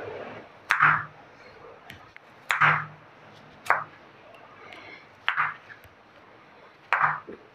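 Kitchen knife slicing peeled cucumbers lengthwise on a bamboo cutting board. There are about five separate cuts a second or two apart, each a crisp crunch ending in a sharp knock of the blade on the board.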